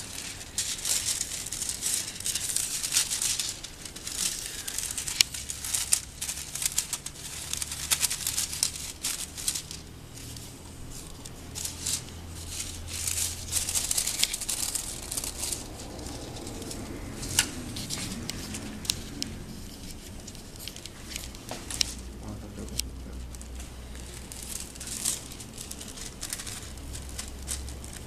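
Metallic hot-stamping foil crinkling and rustling as it is handled and threaded onto a foil stamping machine's rollers, with many sharp clicks, busiest in the first half.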